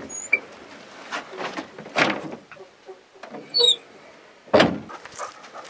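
A wooden door being opened and shut as someone goes out: several knocks and bumps, a short squeak about three and a half seconds in, and a heavy thump over four and a half seconds in.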